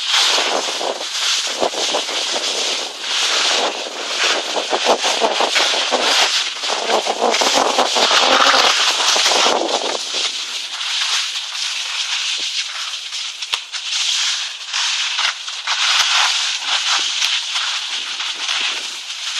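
Skis sliding and scraping over packed snow, a continuous crackly hiss that grows louder and rougher between about seven and ten seconds in.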